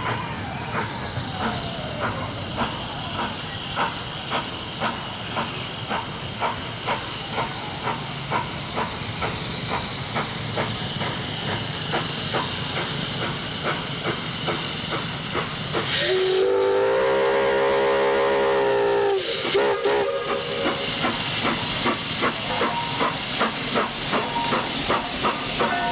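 Baldwin narrow-gauge steam locomotive of the Walt Disney World Railroad chuffing in an even rhythm with a hiss of steam. About 16 seconds in, its whistle sounds one long blast of about three seconds, then a short toot, and the chuffing goes on.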